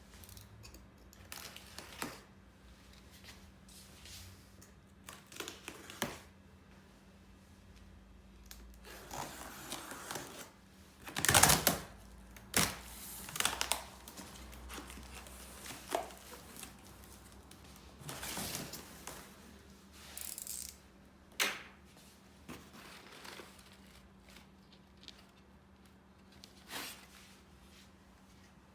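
Irregular clicks, knocks and brief rustling from hand work with wooden parts, the loudest cluster about eleven to thirteen seconds in, over a faint steady hum.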